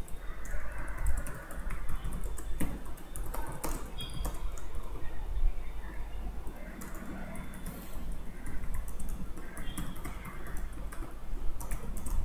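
Computer keyboard typing: irregular key clicks as a line of text is typed, over a steady low hum.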